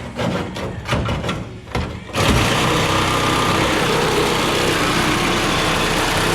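Reciprocating saw (sawzall) cutting through a steel cab mount bolt that would only spin, not unscrew. Irregular short knocks at first, then from about two seconds in the saw runs loud and steady through the cut.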